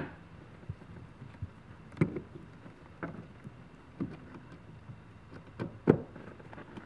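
Sharp clicks and knocks, about six spread a second or so apart, as the BMW E46's fore-aft power-seat motor is handled and fitted into the seat frame. The first and the one near the end are the loudest.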